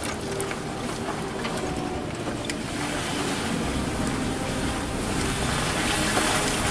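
4x4 vehicle driving, a steady engine under a wash of wind and rolling noise that grows slightly louder after about three seconds.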